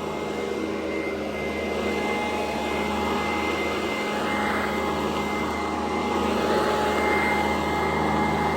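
Sanitaire SC899 commercial upright vacuum cleaner running steadily while vacuuming, a constant motor whine over a steady hum.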